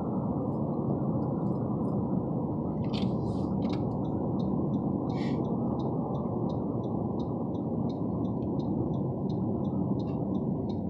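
Steady road and engine noise heard inside a moving car's cabin, with a few brief rustles about three seconds in. From about four seconds in there is a regular light ticking, about three ticks a second.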